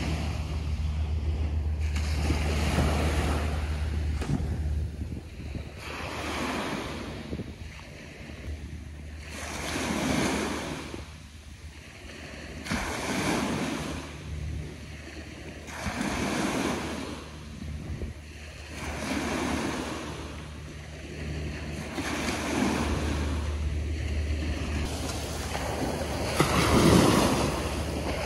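Small waves breaking and washing up onto a sandy beach, the surf swelling and ebbing about every three seconds, the strongest wash near the end. Wind rumbles on the microphone at times.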